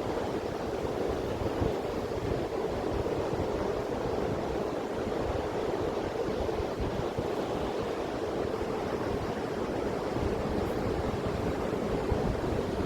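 Steady surf washing on a sandy beach, with wind buffeting the microphone.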